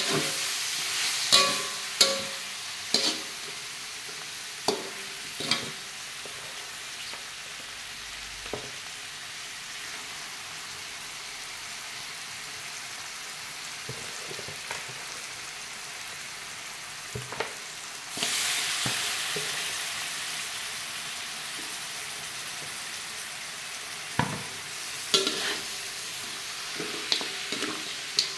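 Free-range chicken pieces frying in spice paste in a wok, with a steady sizzle. A metal spatula scrapes and knocks against the wok in a few spells of stirring, and the sizzle swells about eighteen seconds in.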